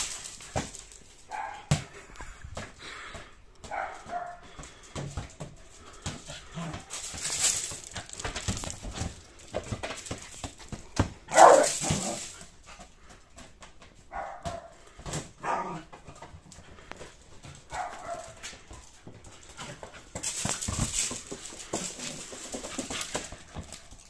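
Yorkshire terrier giving short yaps now and then as it chases a balloon, with bursts of scuffling and crunching as its paws scrabble over gravel, and scattered light knocks.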